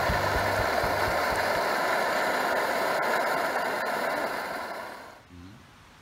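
Pot of chicken, cabbage and leek boiling hard: a steady rushing hiss of rolling bubbles that fades out about five seconds in.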